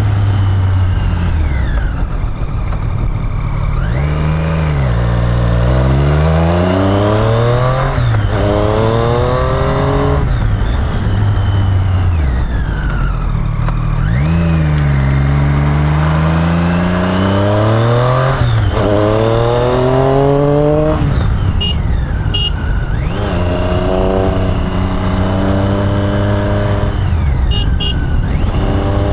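Triumph Street Triple's inline three-cylinder engine under way, its pitch climbing as it accelerates and then dropping back, several times over, with steady wind and road noise underneath.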